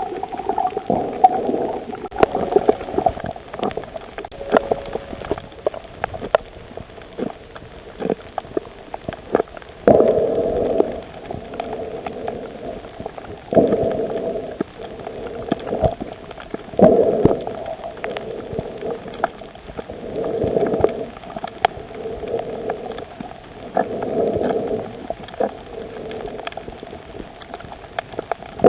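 Muffled underwater sound of moving water and bubbling, heard through a submerged camera, with many scattered sharp clicks and louder surges every three to four seconds.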